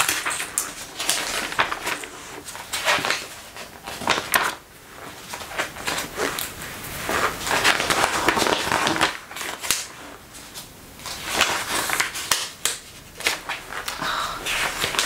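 Glossy magazine pages being handled and turned, an irregular run of paper rustles and crisp crinkles, mixed with the creak of a leather jacket as the arms move.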